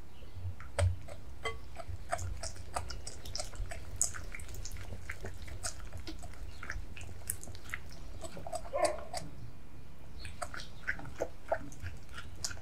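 Wire whisk stirring melted dark chocolate into egg yolks in a glass bowl: irregular wet, sticky clicks and taps of the wires against the glass, over a low steady hum.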